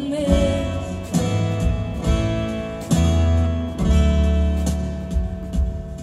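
A live acoustic pop band playing a passage without singing: strummed acoustic guitar over deep double bass notes and light drums.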